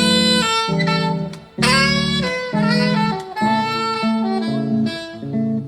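Saxophone playing a jazz melody line of changing notes over a bass accompaniment, with a brief break in the phrase about one and a half seconds in.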